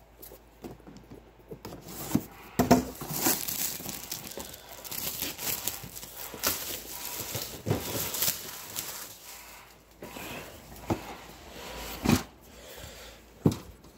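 Plastic wrapping crinkling and tearing as a cardboard box is unwrapped and opened, with scattered clicks and a few sharp knocks from the box being handled.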